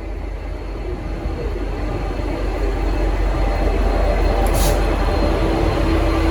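V/Line N class diesel-electric locomotive N472 pulling away under power, its low engine rumble growing steadily louder. A steady droning tone comes in near the end, and there is a brief hiss about four and a half seconds in.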